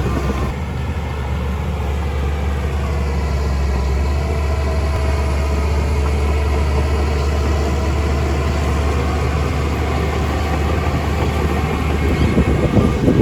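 Heavy diesel engine running steadily with a deep, even drone; near the end it turns rougher, with irregular knocks and clatter over the engine.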